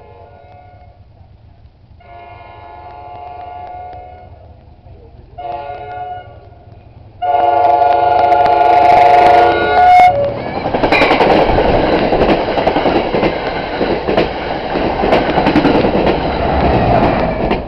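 NJ Transit express train's air horn sounding the grade-crossing signal, long, long, short, long, each blast louder as the train nears. Then the train passes at speed, a loud rush of wheels on rail with clacking over the rail joints.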